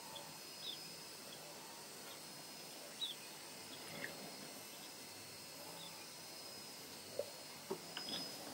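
Faint outdoor ambience: a steady hiss with scattered short, high chirps a second or more apart, and a few short lower calls near the end.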